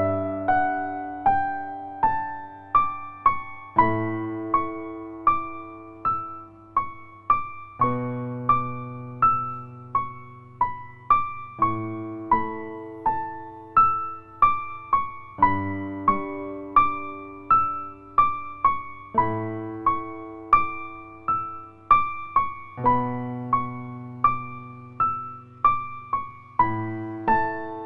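Background music: a gentle keyboard melody in the manner of an electric piano, separate notes each ringing and fading, with the same phrase coming round about every four seconds.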